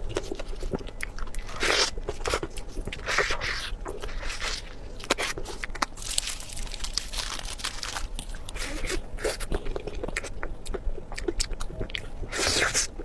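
Close-miked chewing and crunching of food, with irregular crackly bites and sharp wet mouth clicks.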